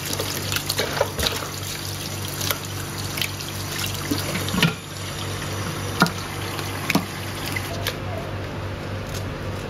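Kitchen tap running in a steady stream onto leafy greens in a water-filled basin as the lettuce leaves are rinsed by hand, with a few scattered clicks and knocks from handling.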